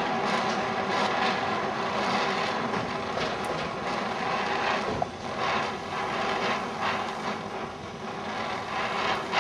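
Cobra oxy-fuel torch flame hissing steadily as it melts and shapes red-hot steel, with faint crackles from flying sparks.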